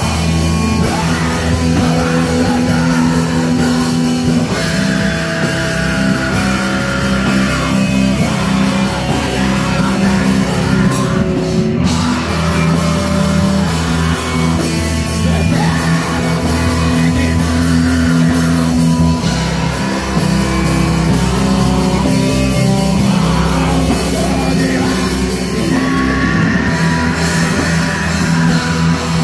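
Heavy metal band playing live: distorted electric guitar, bass guitar and drum kit, with a singer's vocals over them.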